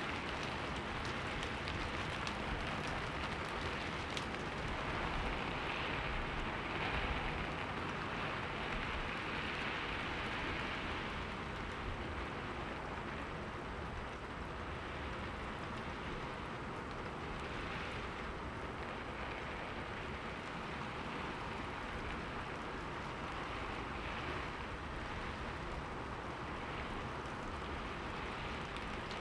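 Steady rain falling on a window, an even hiss with a few sharper drop ticks in the first few seconds.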